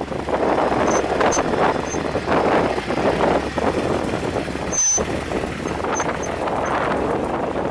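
Off-road vehicle driving over rough ground, a dense rumbling noise with wind buffeting the microphone and a few short high squeaks.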